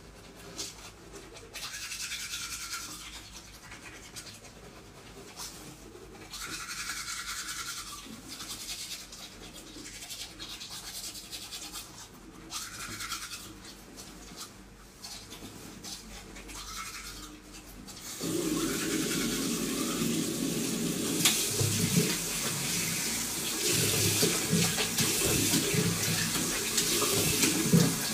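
Teeth being brushed with a toothbrush, scrubbing in short bursts. About two-thirds of the way through, a tap turns on and water runs into the sink.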